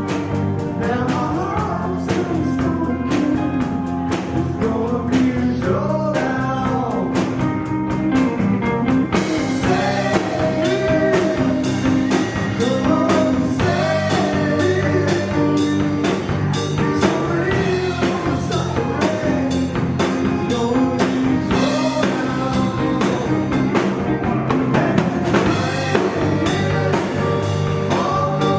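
Live rock band playing: drum kit keeping a steady beat under electric guitar and bass, with a sung vocal line.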